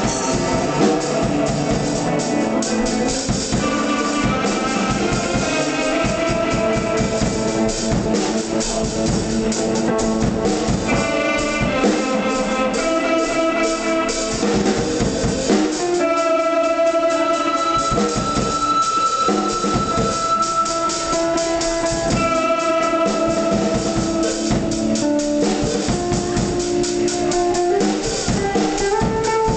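Small band playing live: a red electric guitar and a second guitar over a Pearl drum kit keeping a steady beat, with held guitar notes ringing through the middle part.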